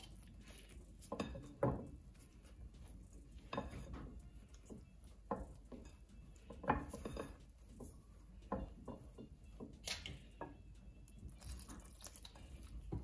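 Silicone spatula scraping and knocking against a glass mixing bowl as it stirs flour, in irregular strokes, with water trickled into the bowl near the end.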